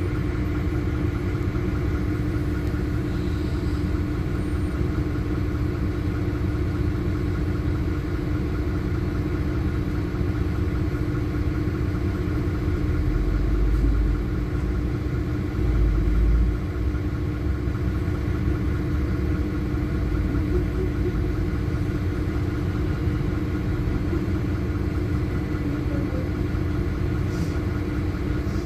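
Passenger cabin of a LiAZ-5292.21 city bus under way: the engine and drivetrain run steadily with a constant hum over road rumble. Two brief, deeper bumps come about halfway through.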